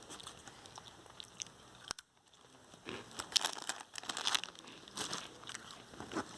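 Crinkling of a plastic snack wrapper and crunching of corn pretzels being eaten, in short irregular crackly bursts. There is a sharp click just before two seconds in.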